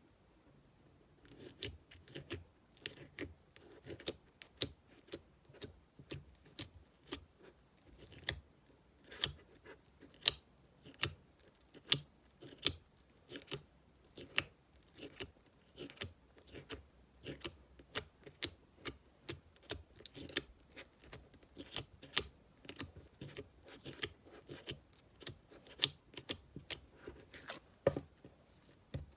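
Slime being pressed and worked by hand, giving an irregular run of sharp crackling pops and clicks, a few a second, starting about a second in.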